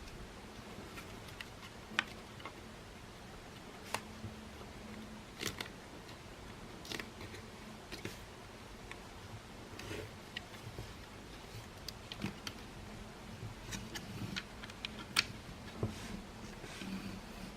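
Irregular small clicks and taps as the parts of a Makita CL108FD cordless vacuum cleaner and the tools are handled during disassembly or reassembly, over a faint steady hum.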